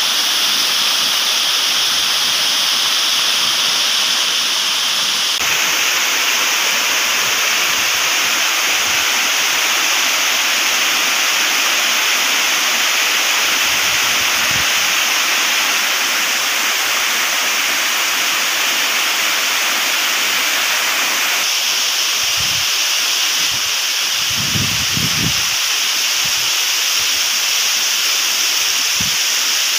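Steady rush of heavy rain and water cascading down a rocky cliff face. The tone of the rush shifts abruptly twice. A few brief low rumbles come about three quarters of the way through.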